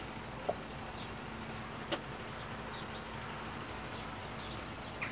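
A large truck's engine running at a distance with a faint low hum, under steady outdoor noise. Faint short bird chirps come through, and there are two sharp clicks, about half a second and two seconds in.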